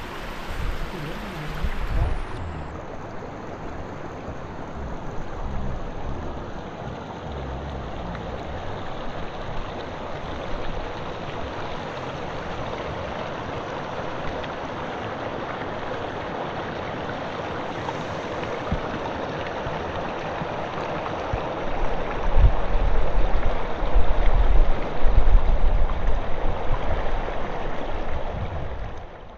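Stream water running steadily, with a low rumbling that grows louder for several seconds near the end.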